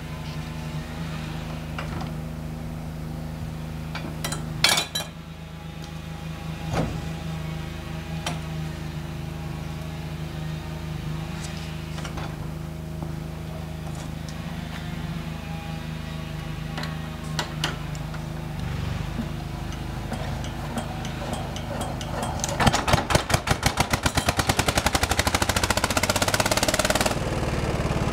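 Small stationary engine driving a rice huller, running steadily, with a sharp knock about five seconds in. Near the end it speeds up into a much louder, fast pulsing chug, then drops back to a steadier run.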